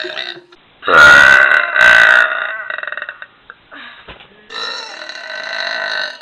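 A woman burping loudly, several long drawn-out belches: one ends just as another begins, a loud one starts about a second in and trails off into a croaky rattle, and another long one starts past the middle.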